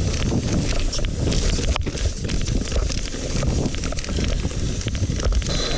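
Mountain bike riding down a wet dirt trail: tyres rolling over the ground with a continuous rumble and frequent small clicks and rattles from the bike over bumps, with wind buffeting the microphone.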